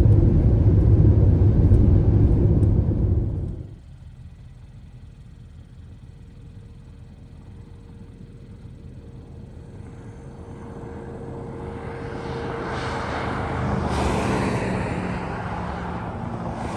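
Kia Soul's road and engine noise heard from inside the cabin at highway speed, a loud, low, even rumble that cuts off abruptly about three and a half seconds in. After that comes a much quieter hum that grows into a rushing noise, loudest shortly before the end.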